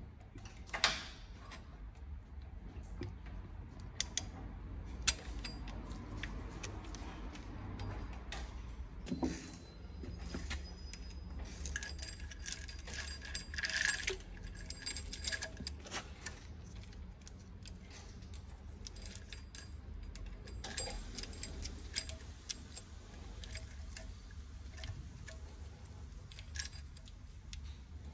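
Steel timing chain of an Audi A5 2.0 engine clinking and rattling as it is handled and fed over the camshaft sprockets, with many scattered sharp metal clicks over a steady low hum.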